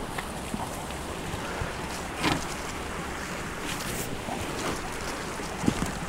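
Wind buffeting the microphone as a steady low rumble, with a few brief rustles of leafy bush branches being hooked and pulled with a pole.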